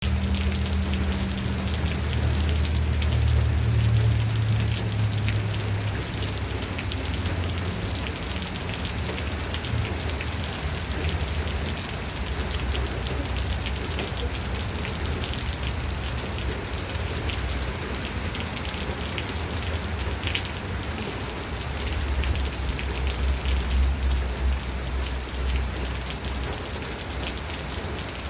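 Steady rain falling on a surface: an even hiss full of distinct drop hits. A low rumble swells over the first few seconds and again a little past twenty seconds in.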